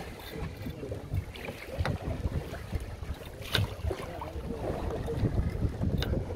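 Wind buffeting the microphone on a fishing boat at sea, a gusty low rumble with sea and hull noise under it, and one sharp knock about three and a half seconds in.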